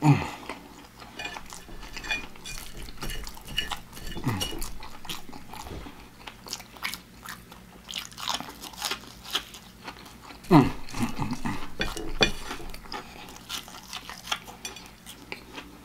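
Close-up chewing and crunching of breaded fried pork chop, with many wet mouth clicks and lip smacks. A short low falling 'mmm' comes about four seconds in and again, louder, after ten seconds.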